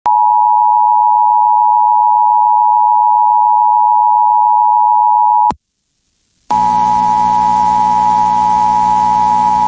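Emergency Alert System alert tones for a tornado warning on an FM station. A loud steady tone lasts about five and a half seconds and cuts off suddenly. After a second of silence a second steady tone starts, with a low hum under it.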